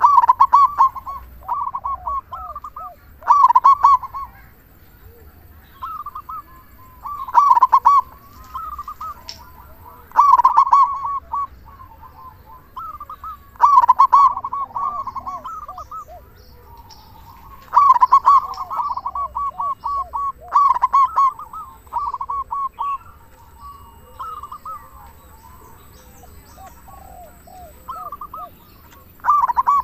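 Zebra dove (local perkutut) cooing loudly: phrases of rapid, staccato coos, one every few seconds, with a longer pause before a last phrase at the end.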